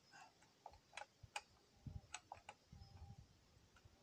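Faint, scattered clicks and a few soft knocks from hands and a tool working on the Tanaka ECV-5501 chainsaw's bar and chain, with the chain tension just set snug.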